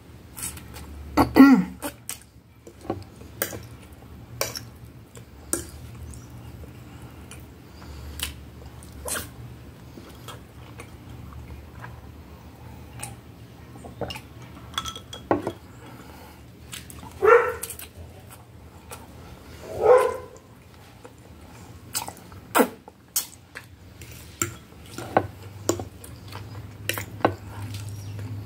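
Close-up eating sounds: a fork clicking and scraping on a plate between mouthfuls of spaghetti, with slurping and a drink from a glass. Three louder short sounds stand out, one about a second in and two close together past the middle.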